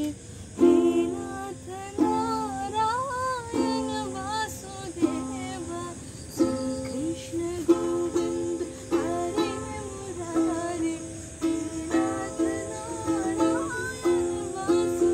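Ukulele strummed in slow chords, a fresh strum about every second, with a voice singing a wavering melody along in places.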